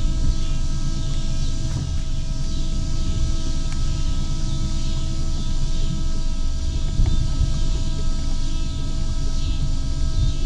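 Steady electric whine of a bass boat's bow-mounted trolling motor, several steady tones together, over a low rumble. The whine cuts off suddenly near the end.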